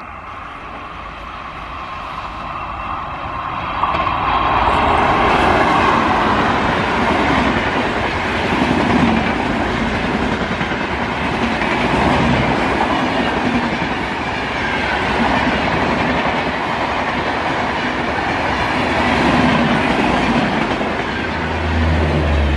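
Duronto express train hauled by a WAP4 electric locomotive passing at speed: the rumble grows as it approaches, jumps loud about four seconds in as the locomotive goes by, then the coaches roll past with a steady rush and wheel clatter over the rail joints. Near the end a deeper drone comes in as the generator car passes.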